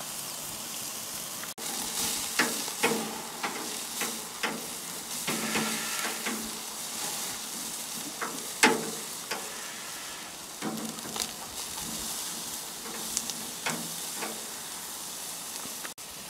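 Sausages and marinated steaks sizzling on a charcoal grill: a steady hiss, with scattered clicks and scrapes of grill tongs turning the meat on the grate, the sharpest about two-thirds of the way through.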